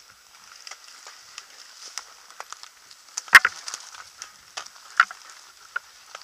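Leaf litter and twigs crackling and snapping underfoot in woodland undergrowth, with sharp snaps about three and a half seconds in and again at five seconds.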